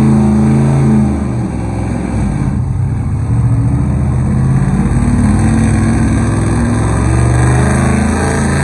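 Pickup truck engine running hard under full load as it drags a weight-transfer pulling sled; the engine note sags briefly about a second in, then builds back up and holds steady.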